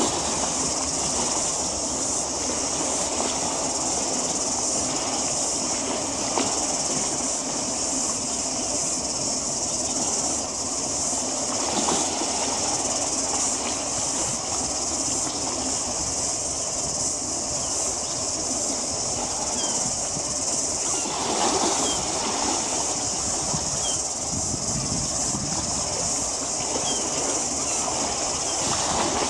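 Steady outdoor harbourside noise: a broad rushing haze with a constant high-pitched hiss over it, and a few faint short chirps in the second half.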